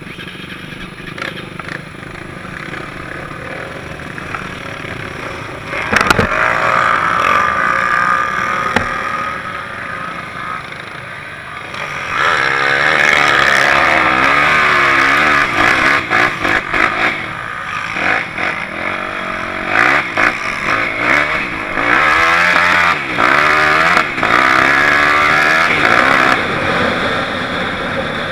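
Sport quad (ATV) engines revving and running on sand, loud and close as if from the rider's own machine, the pitch rising and falling again and again. The engine note jumps suddenly louder about six seconds in.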